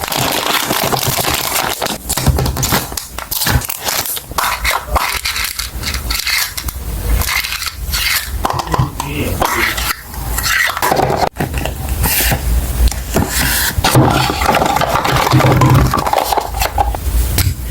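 Loud, irregular scraping and crackling with many sharp clicks, like plastic packaging being handled, rubbed and crinkled close to the microphone.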